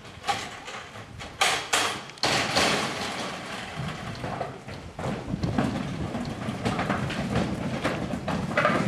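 Metal gates of a livestock trailer being unlatched and opened, with a few sharp clanks and bangs in the first two and a half seconds. From about five seconds in comes a steadier rumble with knocks as Highland cattle move about on the trailer deck.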